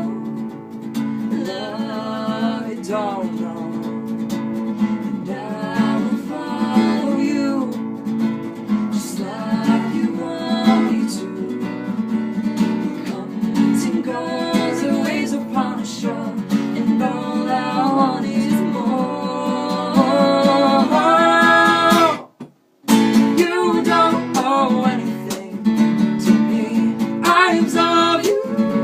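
Acoustic guitar strummed while a voice sings a song, played live; the sound cuts out completely for about half a second about three-quarters of the way through.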